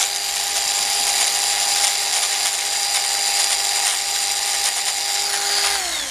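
Small high-speed power tool running steadily with a high whine, grinding down the brazed repair on an antique side-by-side shotgun's action to a smooth slope. Near the end it is switched off and the whine falls as it spins down.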